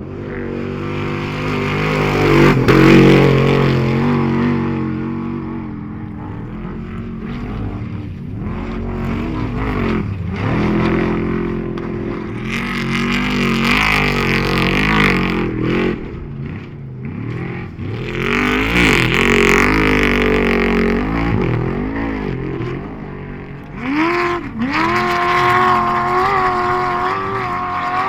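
Off-road race vehicle engines revving up and down as several vehicles go by, each swelling and fading. Near the end one engine holds a steady high pitch.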